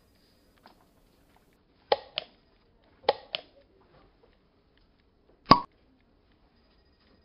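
Computer mouse clicking: a quick double click about two seconds in, another about three seconds in, then a single louder click about five and a half seconds in.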